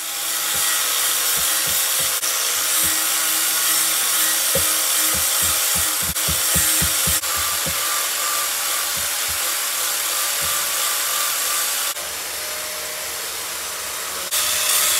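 Small hatchet chopping a bent wooden branch into an adze (chouna) handle: a run of dull wooden knocks, coming a few per second midway, over a steady hiss. The knocks stop about twelve seconds in.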